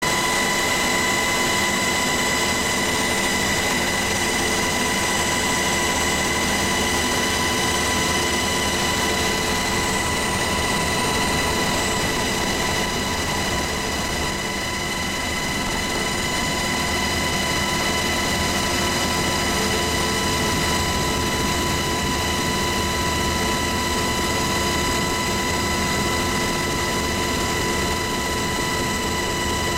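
Helicopter in flight, heard from inside the cabin: a steady, loud drone of rotor and turbine noise with a constant high whine running through it.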